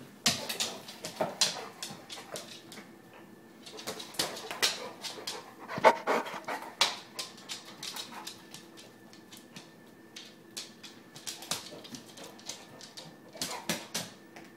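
A dog panting close by in quick short breaths, in bouts with pauses between them.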